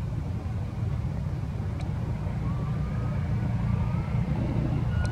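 Steady low rumble, with a few faint short rising calls over it about halfway through.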